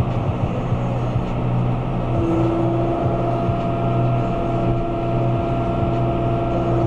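John Deere 5125R tractor's four-cylinder diesel running steadily under PTO load, driving a John Deere 450M round baler, with a steady whine that comes in about two seconds in.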